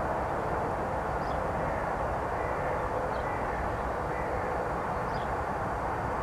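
Steady outdoor rushing noise, even throughout, with a few faint short high chirps about one, three and five seconds in.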